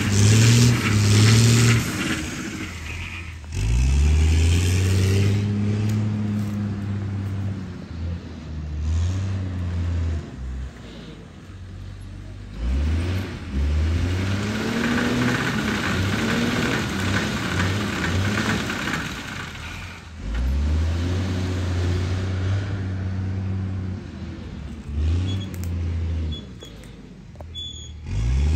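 Engine of a walnut harvesting machine at work, revving up four times, about every eight seconds, and running steadily in between.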